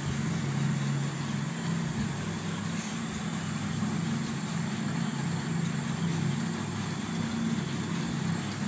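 A motor running steadily: a low hum with a constant hiss.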